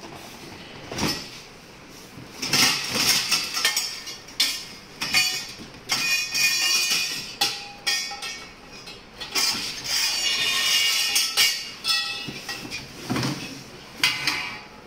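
Chrome-plated steel tubes of a baby spring cot frame clanking and clinking against each other and on a tiled floor as they are taken out of their cardboard box, with cardboard scraping and rustling between the knocks. Some strikes leave a short metallic ring.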